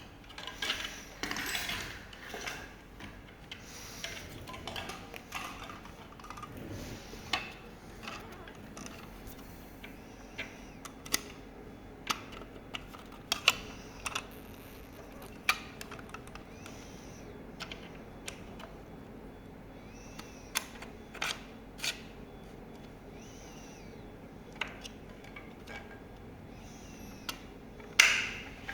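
Scattered clicks and light knocks of tools and parts being handled during vehicle fender disassembly, irregularly spaced with a faint steady hum beneath; a louder cluster of knocks near the end.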